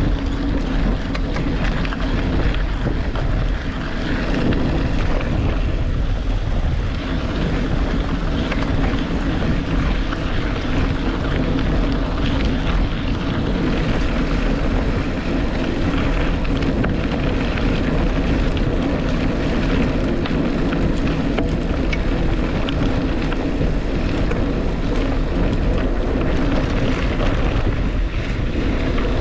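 Vehicle running steadily: a constant low rumble with road noise that does not let up.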